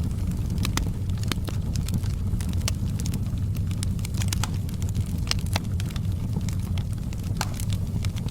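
Wood fire burning, with a steady low rumble and frequent irregular crackles and pops of burning wood.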